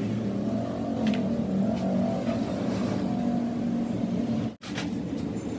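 A motor running with a slightly wavering pitch, cut off by a brief gap about four and a half seconds in.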